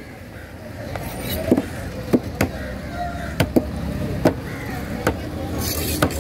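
Large knife chopping through a diamond trevally onto a thick wooden board: about eight sharp strikes at uneven intervals, with steady street noise behind.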